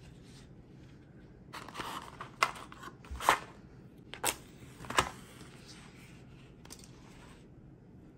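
A cardboard matchbox and a wooden kitchen match being handled. There is a scraping rustle, then four sharp clicks and taps about a second apart, followed by faint handling.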